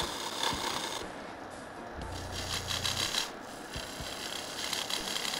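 Parting tool cutting into a square wood blank spinning on a benchtop wood lathe: a steady, uneven rasping scrape as the tool reduces the diameter at the marked handle lines.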